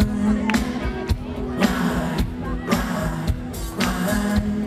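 Pop-rock band playing live: a steady drum beat of about two hits a second under electric guitar and sustained keyboard/bass tones, heard from within the audience.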